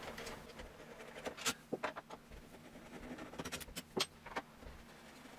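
Faint, scattered clicks and scrapes of a screwdriver working the screws of a front-door lock's handle set, metal on metal.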